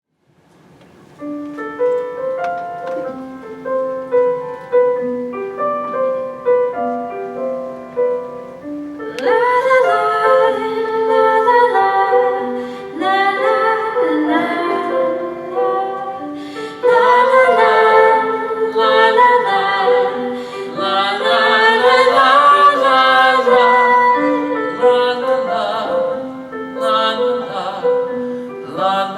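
Piano plays a gentle introduction; about nine seconds in a woman's voice enters, singing over the piano accompaniment.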